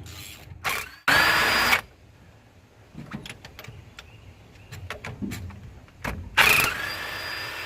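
A power wrench whining in two bursts, about a second in and again near the end, as it spins out cylinder head bolts on a Chevy 305 V8, with light metal clinks between.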